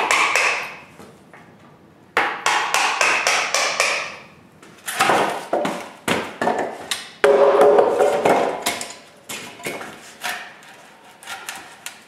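A wooden mallet knocking apart the joints of a heavy timber sawhorse. Two quick runs of blows come at about five a second, then slower, scattered wooden knocks and clunks as the beams come loose.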